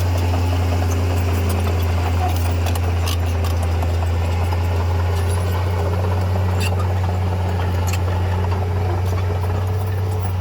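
Komatsu D31P bulldozer's diesel engine running steadily at a constant low drone, with a few short sharp ticks or clanks over it.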